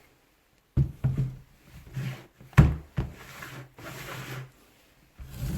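Knocks, clatter and scraping of the Hilti TE 40 AVR rotary hammer's housing parts being handled during disassembly, with a few sharp knocks in the first three seconds.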